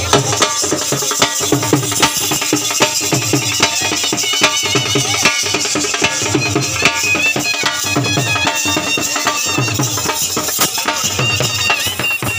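Loud Punjabi folk dance music: a steady drum beat under a high melody line.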